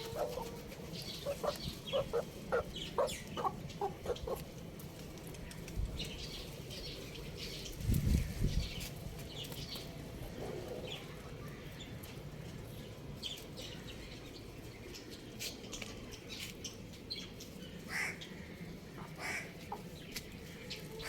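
Chickens clucking in a quick run of short calls for the first four seconds, with high chick peeps scattered throughout and more calls near the end. A brief low thump about eight seconds in.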